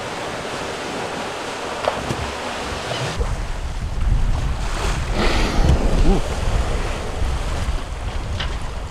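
Sea wash with wind buffeting the microphone on a boat under way. A heavy low wind rumble sets in about three seconds in.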